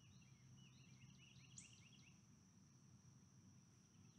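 Near silence: faint outdoor ambience, with a distant bird giving a quick series of short falling chirps over the first two seconds and a steady high-pitched drone underneath.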